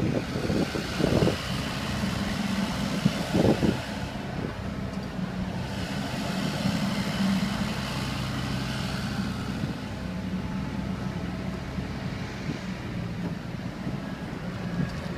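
Wacker Neuson 28Z3 mini excavator's diesel engine running steadily under load while the machine swings and works its arm, with a few clanks in the first four seconds.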